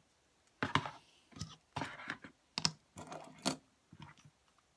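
Irregular clicking and clacking of fingerboards being handled against a plastic storage drawer, a dozen or so sharp, uneven clicks.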